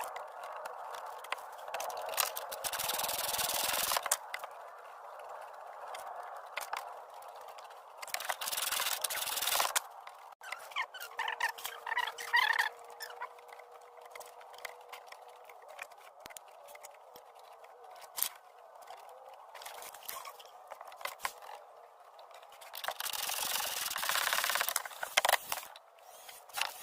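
Tools working on the bolt that holds a car's front control arm to the subframe: spells of metal scraping and rubbing, three longer ones, with scattered clicks and knocks between.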